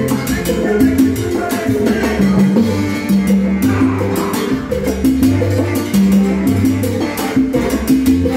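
Salsa music played by a live band: sustained bass notes under a steady, dense percussion pattern of congas and other drums.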